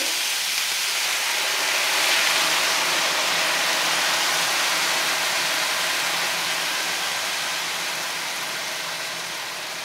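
Sauce sizzling as it is poured into a hot sauté pan of browned chicken and broccoli and stirred in: a steady hiss that swells about two seconds in and then slowly dies down.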